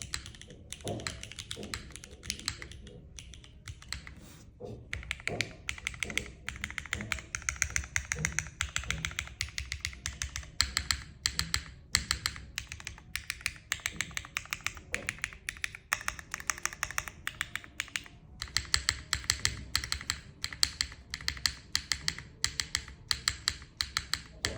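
Typing on a Neo60 Core custom mechanical keyboard: sharp keystroke clicks, a few slower separate presses in the first few seconds, then fast continuous typing with brief pauses.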